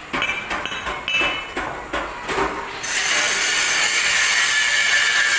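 About six sharp hammer blows on steel parts, each with a ringing clink. About three seconds in, louder steady background music comes in and covers the rest.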